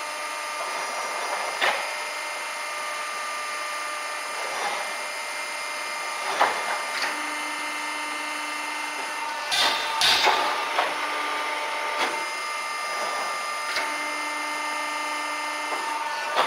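Peddinghaus CNC feed system running on a steel punching and shearing machine: a steady machine hum with a lower motor tone that comes and goes three times as the feed moves, and sharp metallic clunks every few seconds, a cluster of them about two-thirds of the way in.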